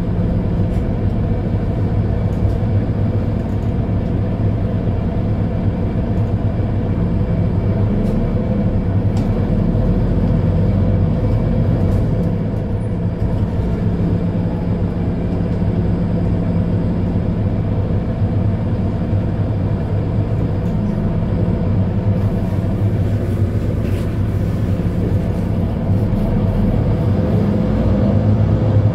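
Mercedes-Benz Citaro C2 Ü hybrid bus standing with its diesel engine idling: a steady low rumble with an even hum. It is heard first from behind the bus, then from inside its passenger cabin.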